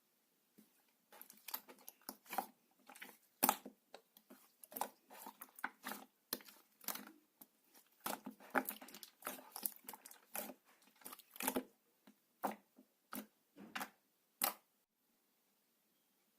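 Clear purple slime being squished and worked by hand, making a dense run of irregular sticky clicks and pops that stop shortly before the end.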